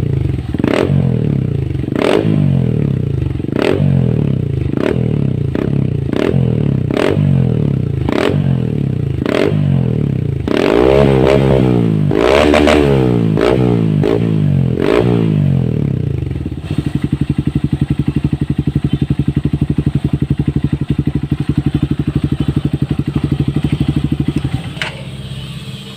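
Honda CRF150L single-cylinder four-stroke running through a Yoshimura full exhaust. The throttle is blipped repeatedly, about once every three-quarters of a second, and then given a few longer revs. After that the engine settles to a steady, pulsing idle that drops away near the end.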